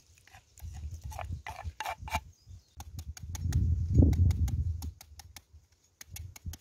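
Large kitchen knife cutting into the flesh of a peeled mango: scattered clicks early on, then a quick, even run of blade clicks near the end as the fruit is scored. A low rumble swells and fades in the middle, loudest about four seconds in.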